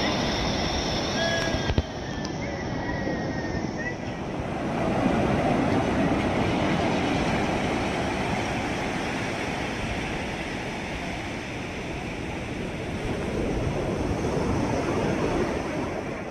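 Ocean surf breaking and washing up the beach: a steady rush of waves that swells and eases twice.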